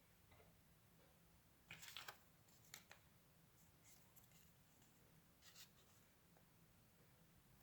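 Near silence with a few faint rustles of paper being handled: a cluster about two seconds in, a short one near three seconds, and another at about five and a half seconds.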